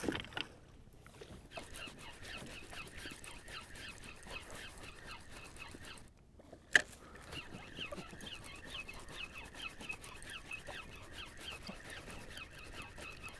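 Spinning reel being wound while jigging, ticking steadily at about four clicks a second. The winding stops briefly a little after halfway, followed by one sharp click, then the ticking resumes.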